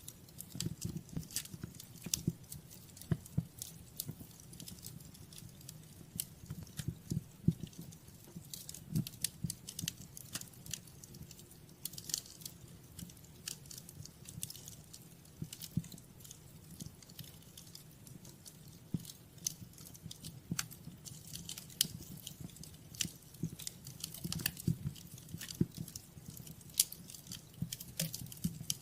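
Wood fire crackling in a fireplace: irregular pops and snaps over a low, steady rumble of burning.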